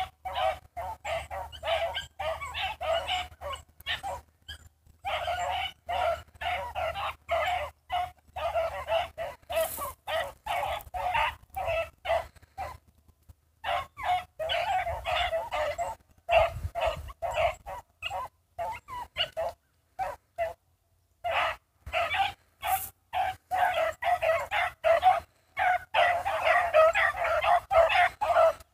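A pack of rabbit hounds baying and yelping in an overlapping chorus while running a rabbit's trail, with short lulls about five, thirteen and twenty seconds in.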